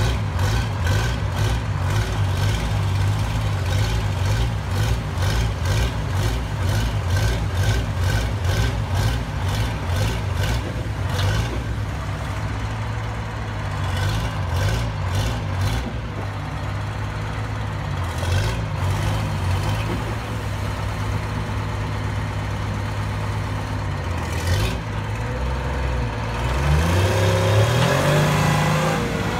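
Warner Swasey 45-ton truck crane's engine running, with a regular ticking beat of about two to three strokes a second in the first ten seconds or so. Near the end the engine revs up, its pitch rising and the sound getting louder.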